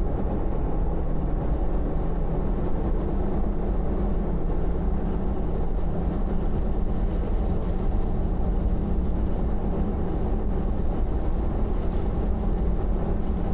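Toyota Land Cruiser Troopy driving at steady speed, its engine and road noise making an even low rumble.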